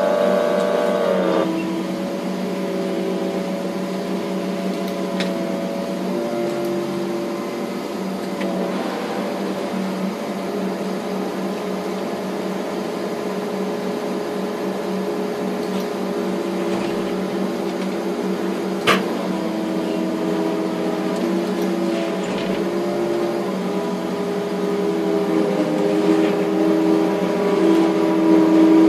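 Liebherr crane's engine and hydraulics running steadily, heard from inside the operator's cab while lifting a 50,000 lb steel coil. The drone's tones step up and down a few times as the controls are worked. A louder tone cuts off about a second and a half in, and there is one sharp click about 19 seconds in.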